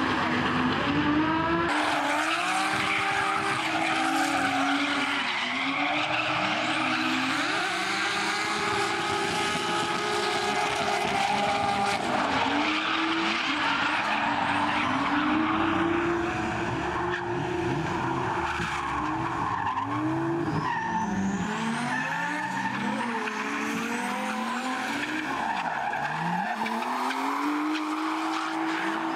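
Two drift cars sliding in tandem. Their engines rev up and down against each other with constantly shifting pitch, over the continuous hiss and squeal of spinning, sliding tyres.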